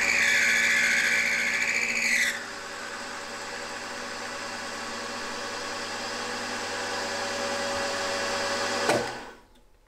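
Milling machine end mill cutting aluminium, the spindle running with a steady whine. A louder, high-pitched cutting squeal lasts about the first two seconds, then the cut goes on more quietly and evenly before fading out near the end.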